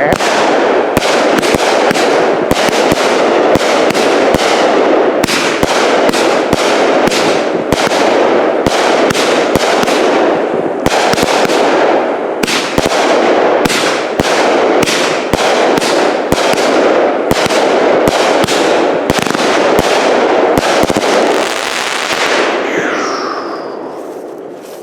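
A Phantom Wicked Pissah 30-shot 200-gram repeater cake firing in rapid succession: sharp shot after shot over a constant crackle for about twenty seconds. It then tails off, with a faint whistle near the end.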